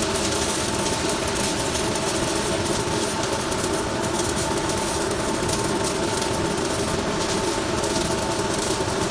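Robotic welding arc crackling steadily, laying a weld pass, over a constant hum from the welding equipment.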